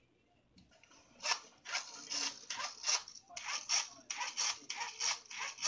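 A small hand-held LED flashlight being worked by hand: short scratchy rasping strokes, about three a second, starting about a second in. The light is not behaving, which its owner puts down to something wrong with the wiring.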